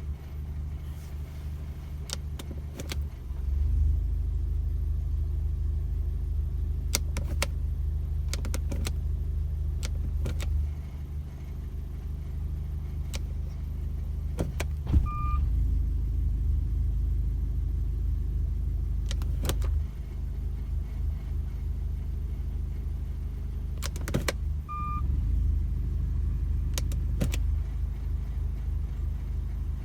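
Volkswagen Golf Mk5 engine running at idle with a low rumble that steps up and down in level several times, over which scattered sharp clicks and knocks sound: the suspect noise that the owner thinks may come from the flywheel. A short electronic beep sounds twice, about halfway through and again near the end.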